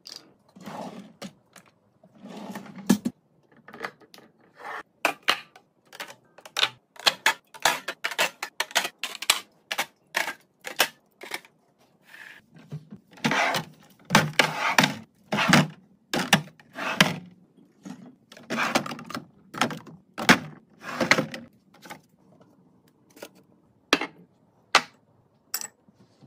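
Kitchen restocking handling sounds: a quick, uneven run of clicks, taps and knocks as items and containers are picked up, opened and set down.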